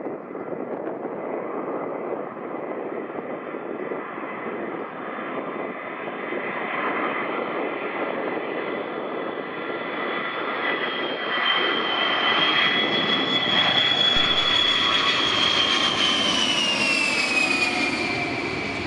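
Boeing E-3A AWACS on landing approach, its four TF33 turbofan engines growing louder as the aircraft closes in. A high whine rides over the rumble and glides down in pitch near the end as the jet passes over.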